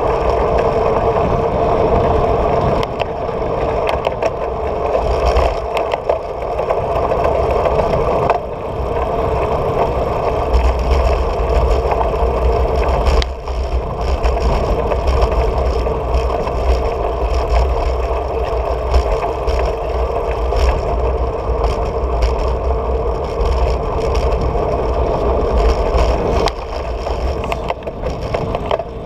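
Steady wind rush and road rumble on a handlebar-mounted camera while cycling, with scattered rattles and knocks as the bike rolls over cracked asphalt.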